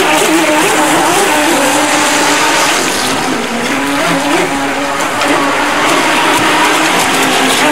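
Battery-powered Neptune RC boat's electric motor whining, its pitch wavering up and down as the throttle and turns change, over the hiss of the hull spraying through the water.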